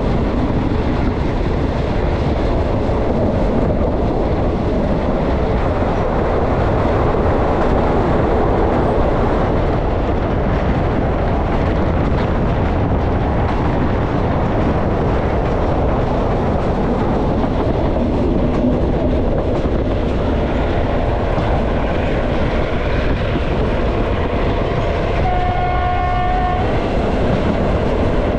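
Diesel passenger train running steadily on the rails with a continuous rumble. Its horn sounds once near the end, for about a second.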